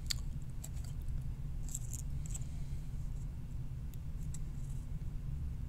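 Faint small clicks and scratches of a resistor's thin wire leads being handled and pushed through the holes of a printed circuit board, over a steady low hum.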